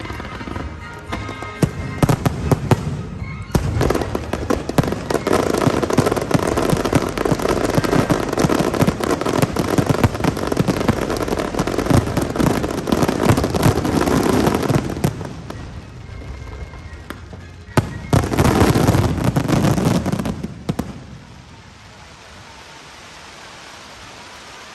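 Fireworks display: a dense barrage of rapid crackling and booming bursts that eases off about 15 seconds in. A second short, loud barrage follows about 18 seconds in, then the bursts die away.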